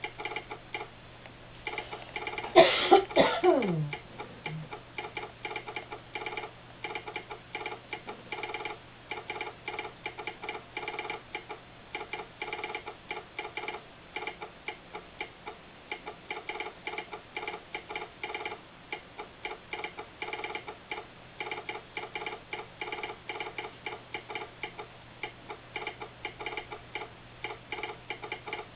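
Telegraph sounder clicking out American Morse code in quick irregular groups of clicks, over a steady low hum. About two and a half seconds in, a loud sound falling in pitch cuts across the clicking for about a second and a half.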